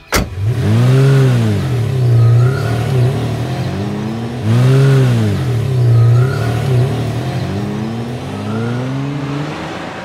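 A cartoon car-engine sound effect, opening with a sharp click. The engine then revs with its pitch swinging up and down several times, runs more evenly, rises once more and fades away near the end.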